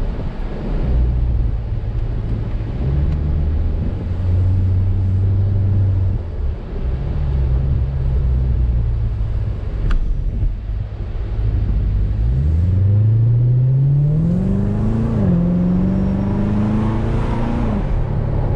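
A 2014 Corvette C7 Stingray's 6.2-litre LT1 V8 heard from inside the cabin, running steadily at low road speed. From about twelve seconds in it accelerates, its pitch rising, dipping once briefly about fifteen seconds in, then rising again.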